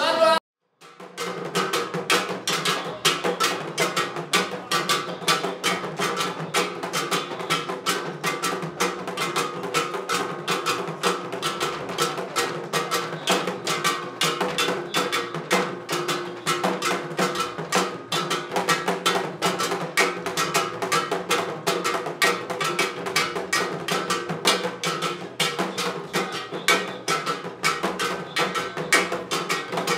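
Music driven by fast, dense percussion (drums with clicking wood-block-like strokes) over steady sustained tones, beginning after a short break just under a second in.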